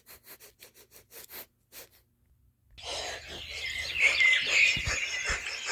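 A cartoon circus lion's sniffing sound effect: a quick run of short sniffs, then after a brief pause a longer breathy, hissing sniff with high chirping squeaks in it that grows louder about halfway through.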